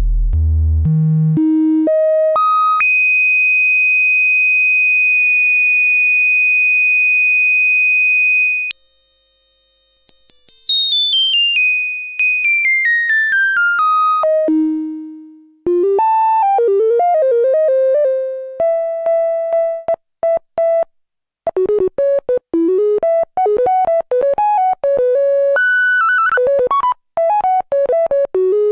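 Homemade Ad-vantage 03M analogue synthesizer playing alone, with light effects. Its tone climbs in quick steps to a long, high held note. About nine seconds in it jumps higher, then steps back down to a low held note. From about sixteen seconds it plays short, choppy notes with wavering pitch bends.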